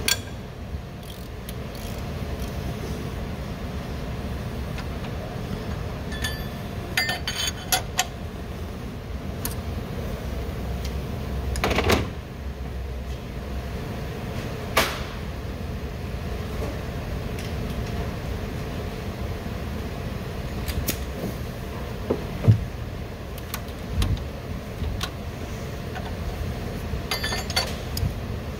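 Steady low background rumble with scattered sharp clicks and knocks of tools and metal parts as the engine's cam phasers and timing gears are worked on by hand, the loudest knock coming a little past the middle.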